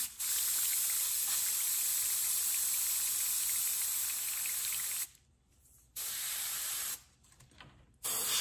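Cheap airbrush spraying thinned latex house paint: a steady hiss of air and paint. It stops twice for about a second, around five and seven seconds in, and starts again near the end.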